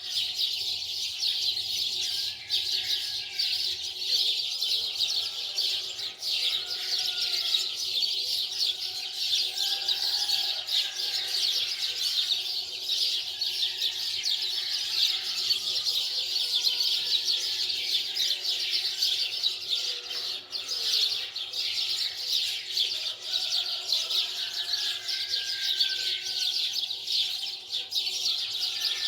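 Many small birds chirping together in a continuous, dense chatter.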